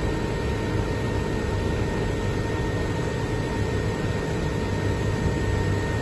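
SunRain 10 kW air-source heat pump running steadily in defrost mode with its fan stopped: an even hum and hiss from the compressor and refrigerant, with a faint steady whine, as the coil's ice melts.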